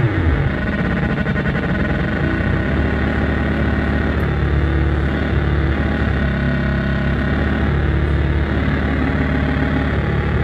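Drone noise synthesizer putting out a low, dense drone, steady in level; right at the start the pitch sweeps down from a higher steady tone into it.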